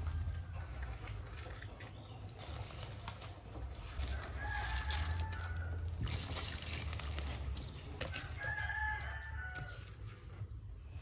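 A rooster crowing twice, about four seconds in and again near nine seconds, over the splash and trickle of water as rice is rinsed by hand in a bowl.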